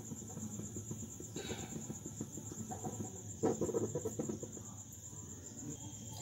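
Insects trilling steadily in a high, fast-pulsing tone, faint over a low background hum, with a soft knock about three and a half seconds in.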